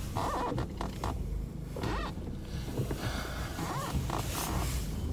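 Rustling and handling noise: a nylon jacket sleeve brushing and a hand knocking against the phone, a few short scrapes and clicks over a low steady hum.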